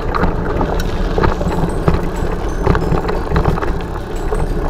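Mountain bike riding along a dirt trail: steady rolling noise from the tyres and frame, with frequent small knocks and rattles as the bike goes over bumps.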